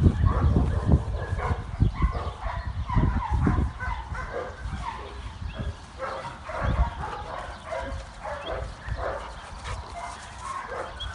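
A dog whining and grumbling in short, wavering sounds with a rubber toy held in her mouth. There are low rumbling thumps in the first few seconds.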